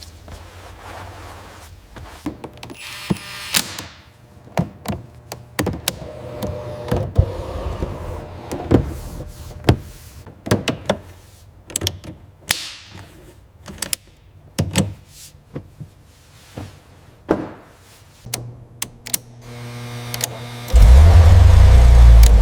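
A series of scattered taps, clicks and thunks, like doors, panels and tools being handled. Loud music with a heavy bass comes in suddenly near the end.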